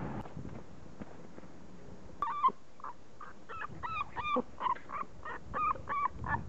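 A 40-day-old beagle puppy yipping: a quick run of short, high-pitched yelps, some dropping in pitch, starting about two seconds in.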